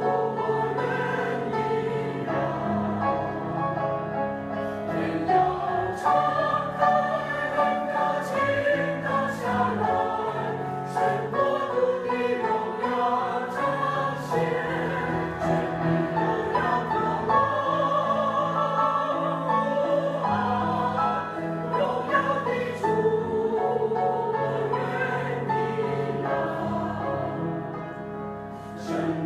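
Choir singing with instrumental accompaniment, slow sustained notes.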